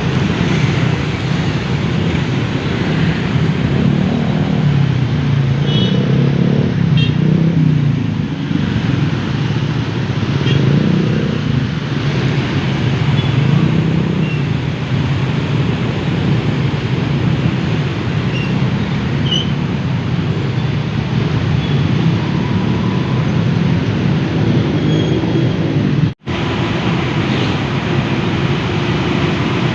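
Busy city road traffic: a dense, steady din of car and motorbike engines and tyres passing. The sound cuts out for an instant near the end.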